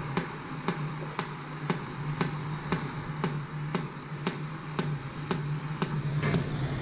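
Short, sharp taps at an even pace of about two a second, over a steady low hum.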